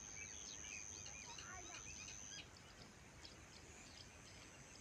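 Faint field ambience: many small birds chirping, over a steady high-pitched whine that cuts off about halfway through.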